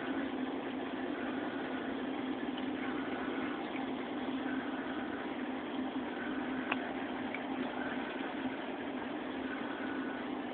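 Steady mechanical hum of running reef aquarium equipment (pumps and powerheads), a constant low drone with a hiss over it. One sharp click about two-thirds of the way through.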